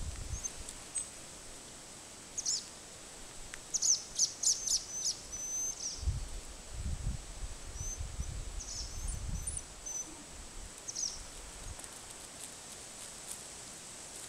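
Small birds chirping: short high chirps scattered through, with a quick run of several about four seconds in, over steady outdoor background noise. Low rumbling on the microphone from about six to ten seconds in.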